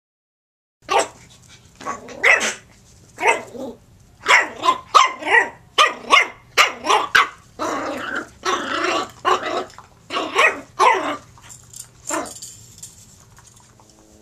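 Jack Russell terrier puppy barking and growling in play: a quick run of short barks, with a few longer growling stretches in the middle, starting about a second in and dying away shortly before the end.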